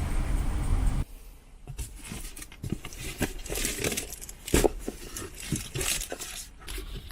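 Skoda petrol engine idling steadily, then shut off abruptly about a second in. Scattered small clicks and knocks follow, as of parts and tools being handled.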